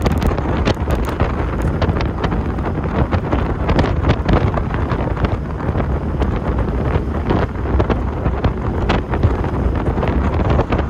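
Wind buffeting the microphone in a moving Honda S2000, a steady rush with gusty spikes, with the car's engine and road noise underneath.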